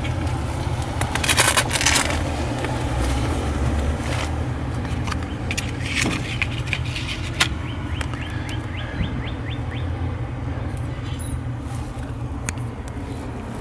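Steady low rumble of passing road traffic, with scattered clicks and scrapes and a short run of quick ticks about six seconds in as a hand works at a metal payphone's handset and hook.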